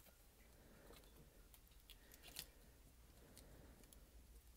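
Faint handling sounds of a thin foil shield sheet being laid over a calculator's circuit board: soft crinkles and a few light clicks, the strongest about two and a half seconds in, over a low steady hum.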